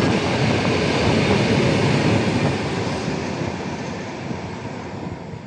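Freight train of open-top wagons rolling past on the rails. The noise fades over the last few seconds as the end of the train goes by.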